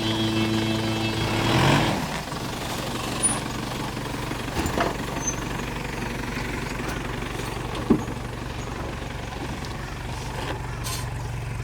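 A closing musical tone cuts off about two seconds in, then an off-road vehicle's engine runs steadily with a few sharp knocks.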